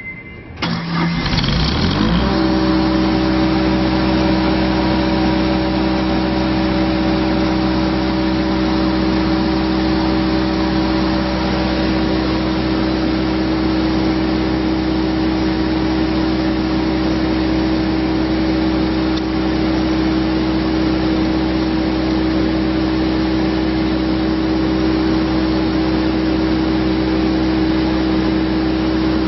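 Lincoln Vantage 400 welder's Perkins diesel engine cranked on the starter and catching within about a second. Its speed rises for a second or so, then it runs steadily.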